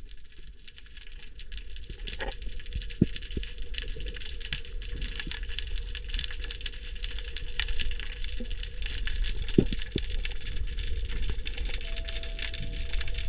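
Underwater ambience heard through a diving camera: a steady crackling hiss over a low rumble, broken by a few sharp clicks, with a brief thin tone near the end.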